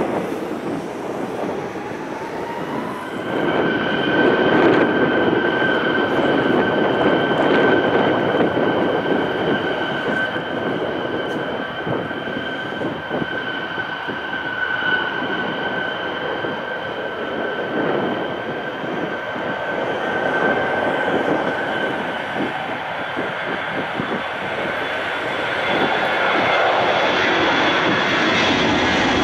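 Airbus A320 jet engines spooling up to takeoff thrust. A rising whine a few seconds in settles into a steady high whine over a dense roar through the takeoff roll. The sound grows louder near the end as the airliner lifts off and climbs.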